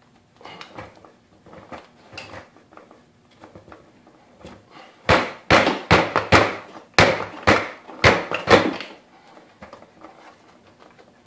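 Replacement caster wheel's metal shaft being forced into the stiff plastic caster socket on a Ridgid wet/dry shop vac's base: light clicks and rattles of handling, then about ten hard knocks in quick succession over some four seconds as it is struck in by hand.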